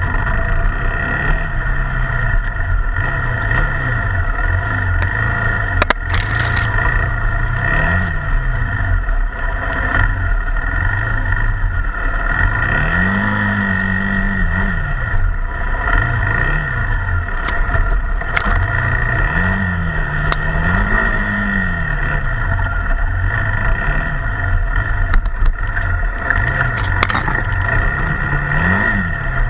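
Honda XR250 Tornado's single-cylinder four-stroke engine, ridden off-road, its revs rising and falling over and over as the rider works the throttle, with a few short knocks.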